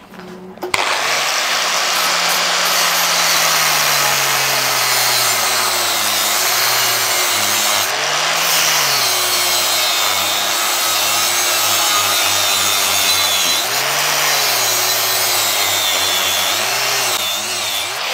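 Angle grinder with a thin cutting disc starting up and cutting into a stainless steel tube as a welding positioner slowly turns it: a steady, harsh grinding hiss, with the motor's pitch sagging and recovering as the disc bites.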